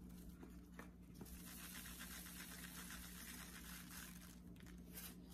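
Faint rustling as black pepper is added to a plastic bag of chicken drumsticks, over a steady low hum.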